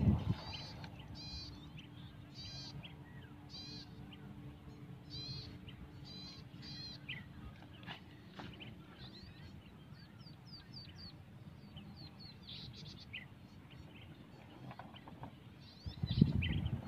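Several birds calling: a short chirping call repeated about every two-thirds of a second for the first several seconds, then thinner, higher chirps from others. A loud low rumble comes in near the end.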